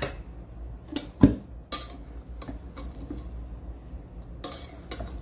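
Steel spatula knocking and scraping against the side of an aluminium pot while fluffing freshly cooked rice. The sharp clinks are spaced irregularly, with the loudest knock just over a second in.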